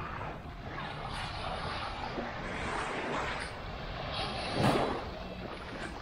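Small waves washing up on a sandy beach, in repeated swells with one louder wash near the end, with wind on the microphone.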